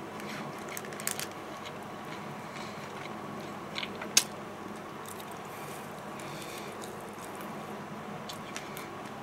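Close-up eating sounds: a person chewing fried chicken and picking the meat apart with the fingers over a paper wrapper. A few sharp crackles stand out, about a second in and just after four seconds, the second the loudest, over a steady low hum.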